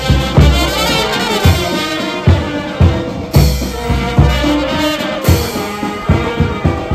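Police brass band playing live: trumpets and trombones carry a tune over a steady bass-drum beat.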